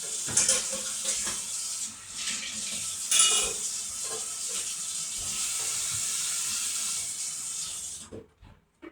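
Water running from a faucet into a sink, with dishes clattering a couple of times. The water cuts off suddenly near the end, followed by a few light knocks.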